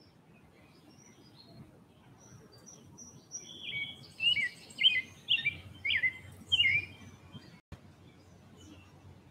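A songbird singing: a run of loud, sharp chirped notes from about three and a half to seven seconds in, with fainter bird calls further off and a low background rumble.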